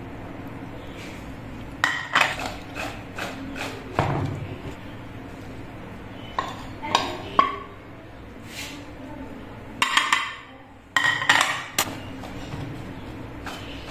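Metal spoon clinking and scraping against a bowl in irregular knocks while stirring a dry flour-and-spice mix into cut okra. Near the end there is a short rustle as the coated okra is tossed by hand.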